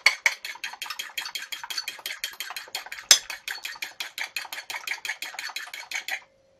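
A fork beating an egg in a ceramic bowl: fast, even clinks of the tines against the bowl, about eight a second, with one louder knock about three seconds in. The beating stops shortly before the end.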